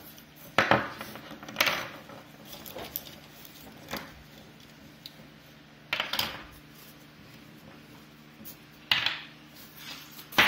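Small plastic and metal pressure-washer nozzle tips and hose fittings shaken out of a mesh bag and set down on a wooden surface: a handful of separate short clatters and rattles. The loudest come about half a second and a second and a half in, with more near six and nine seconds.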